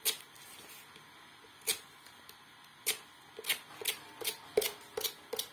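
Knife cutting short slits into tape stuck on paper: a series of sharp clicks and snips, spaced out at first and coming faster in the second half.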